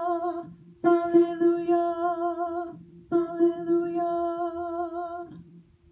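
Soprano voice singing three long held notes on the same pitch, with vibrato and short breaths between them; the last note fades out a little past five seconds in.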